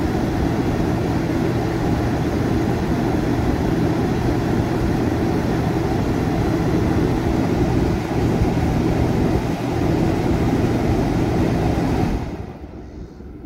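Dometic Brisk Air II rooftop air conditioner running with its newly replaced fan motor, a steady whir with a low hum as it turns the blower squirrel cage and condenser fan blades. The sound dies away near the end.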